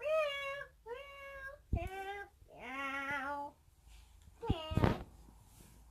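A girl's high sing-song voice making five short wordless calls, mostly stepping lower in pitch, with a couple of knocks from toys being handled, the louder one about five seconds in.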